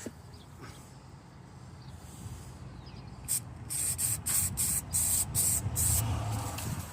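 Aerosol spray can hissing in a quick series of short bursts, about three a second, as rust treatment is sprayed onto a rusty spot.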